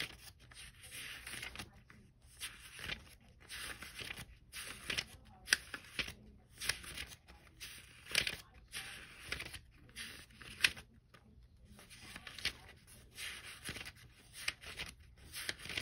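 Pages of a thick comic digest being flipped one after another in an irregular string of papery swishes.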